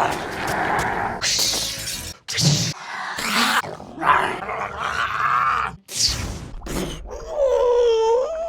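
A man's voice making a rapid run of wordless vocal sound effects, rough and noisy, edited back to back with abrupt cuts between them. Near the end comes a pitched cry that wavers up and down.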